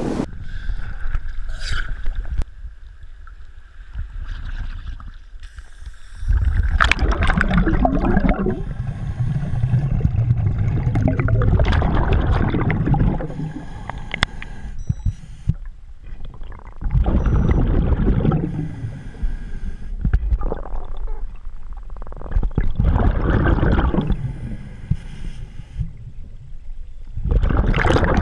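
Scuba diver breathing through a regulator underwater: loud rumbling bursts of exhaled bubbles every four to five seconds, with quieter inhalations between. The bursts start after a quieter first few seconds.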